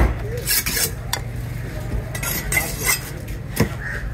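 A knife cutting a fish on a cutting board: three sharp chops, with rasping scraping strokes between them, over a steady low hum.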